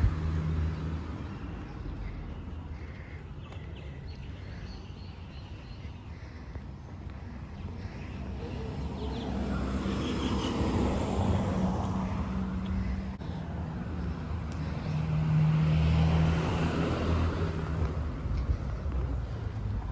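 Street traffic: motor vehicles passing with engine hum, swelling louder about halfway through and again near the end.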